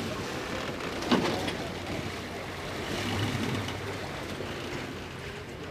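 Patrol boat's engine running steadily under the wash of the sea, with one sharp knock about a second in.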